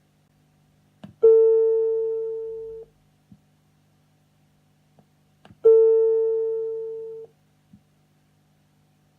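TOA preamplifier's built-in one-tone chime sounding twice, about four and a half seconds apart: each time a single chime tone that fades over about a second and a half and then cuts off abruptly. Small clicks come just before each tone.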